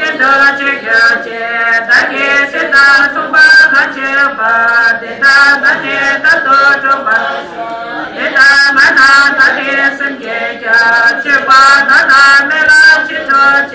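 Group of voices chanting Tibetan Buddhist prayers together in a continuous, rhythmic recitation.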